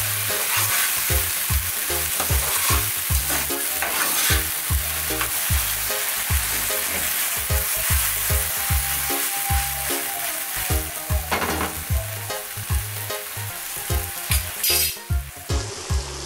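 Sliced okra, onion, sweet pepper and potato sizzling in oil in a nonstick frying pan while a spoon stirs them, a steady hiss that thins near the end. A regular low beat, about twice a second, runs underneath.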